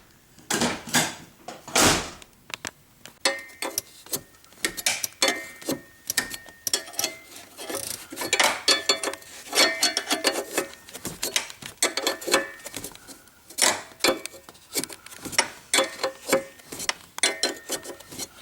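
Irregular metal-on-metal clinks and taps from hand tools and hinge parts during door hinge pin work, some strikes ringing briefly.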